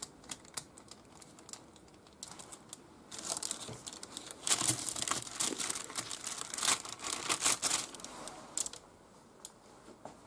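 Baking paper crinkling and rustling under hands handling raw veal fillets, with a few faint clicks at first; the crinkling runs from about three seconds in and stops about eight seconds in.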